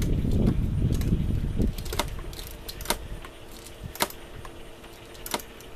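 Sharp metallic ratchet clicks about once a second from a Craftsman torque wrench tightening a water pump bolt, after a low rumble in the first second and a half. The wrench has not yet given the pop that marks its set torque.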